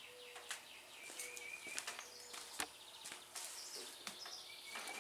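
Faint scattered scratching and light clicking from inside a Cub Cadet 1250 garden tractor, with a few short high chirps, which the owner takes for a mouse running around in there.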